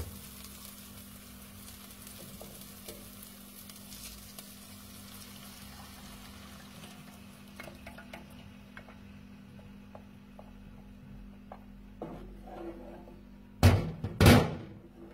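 Onion frying in olive oil in a pan, a faint steady sizzle that thins out over the first half, over a steady low hum. Near the end come two loud sudden bursts less than a second apart.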